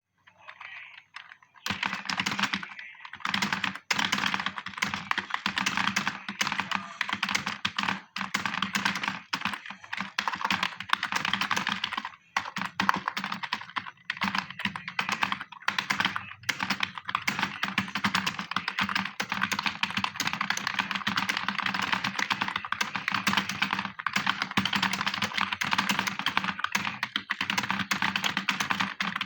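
Fast typing on a computer keyboard: a dense, rapid stream of keystroke clicks at typing-test speed, starting a second or two in and broken only by a few brief pauses.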